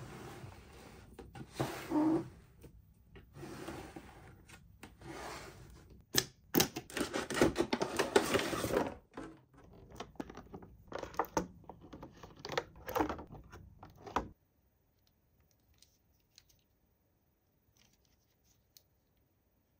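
Toy packaging being handled and opened: irregular scratching, rubbing and tearing of cardboard and plastic, with small clicks. It is loudest about six to nine seconds in and stops abruptly about fourteen seconds in.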